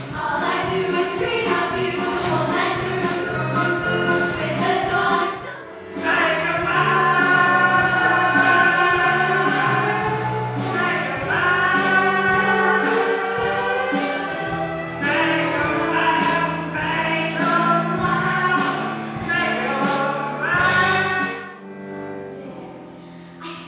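A chorus of school students singing a musical-theatre number together over instrumental accompaniment. The music drops away briefly about six seconds in and fades near the end.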